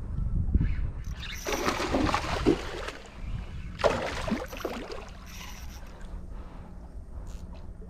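Water splashing against a small boat in two bursts, each about a second long, over a steady low rumble.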